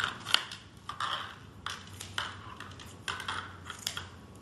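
Kitchen shears snipping through a raw salmon fillet on a glass cutting board: a series of irregular sharp clicks and snips, the loudest about a third of a second in.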